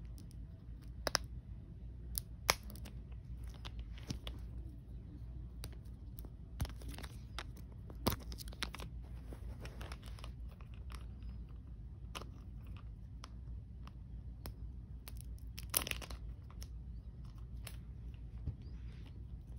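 Plastic shrink-wrap on a toy capsule crinkling and tearing in irregular short crackles, with sharp clicks now and then; the loudest clicks come about a second in, about two and a half seconds in, around eight seconds and around sixteen seconds.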